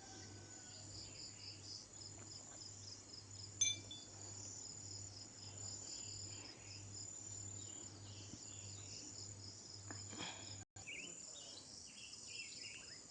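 Faint insect chorus, crickets chirping in a steady pulsing rhythm, with scattered faint bird chirps and one short, sharp high chirp about three and a half seconds in. The sound briefly cuts out near the end.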